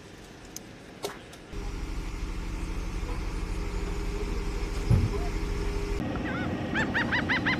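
A few faint clicks, then the diesel engine of a heavy military loader running steadily, with one thump about five seconds in. Near the end, geese start honking over it.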